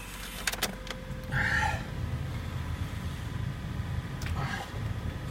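Nissan YD25 four-cylinder diesel idling just after a cold start in hard frost, running rough with a knock that is strong while the engine is cold. A brief hiss comes about a second and a half in.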